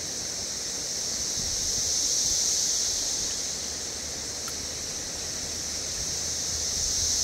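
Outdoor ambience: a steady high-pitched hiss that swells and fades slowly, over a low rumble.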